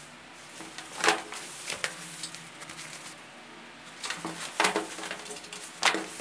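Denim jeans being handled and folded on a tabletop: a few separate rustles and soft thumps of the heavy cloth against the table, the loudest about a second in.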